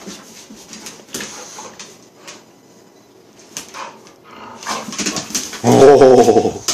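Two dogs play-fighting: scuffling and short knocks on the floor, then a loud, rough, drawn-out growl from the dogs near the end.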